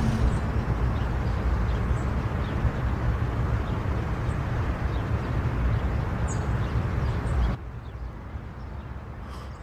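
Steady outdoor ambience of a car idling, with faint bird chirps now and then. About seven and a half seconds in, it drops suddenly to a quieter low rumble inside the car.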